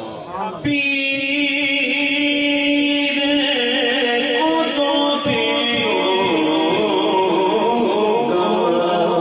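Man singing a naat in Urdu: one long held note begins about half a second in, then gives way to a wavering, ornamented melodic line.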